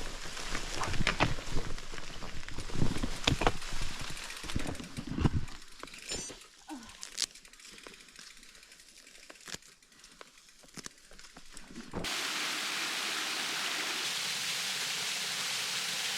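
Brush and branches crackling and scraping as loaded bikes are pushed through dense overgrowth, with scattered clicks and snaps, easing off after about five seconds. About twelve seconds in, a steady rushing of water takes over abruptly.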